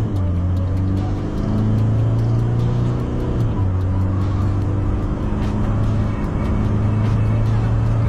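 Pickup truck's engine pulling hard at full throttle through an automatic gearbox, its note climbing and then dropping back at an upshift about three and a half seconds in before climbing steadily again as speed builds.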